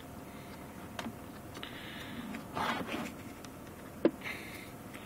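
Faint handling noise: a short rustle about two and a half seconds in and a few light clicks, the sharpest about four seconds in, over a low steady background.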